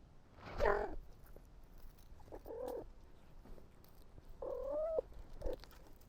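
A cat meowing three times: a short loud meow about half a second in, another in the middle, and a longer meow near the end, followed by a brief faint one.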